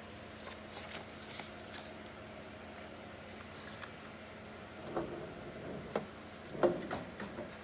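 Sheets of paper rustling as they are handled on the bed of a flatbed letterpress proofing press. About five seconds in come a few knocks and clunks as the press's cylinder carriage is run over the stack, the loudest near the end.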